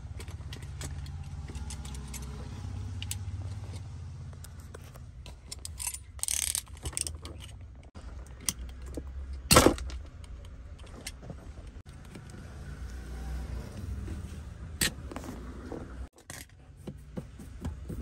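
Small metal and plastic clicks, clinks and rattles as the shift knob, boot and tools are handled around a bare gear-lever shaft, with one sharp loud clack about halfway through. A low steady hum runs underneath.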